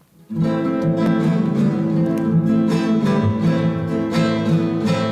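Acoustic guitar strumming a song's introduction, starting about a third of a second in.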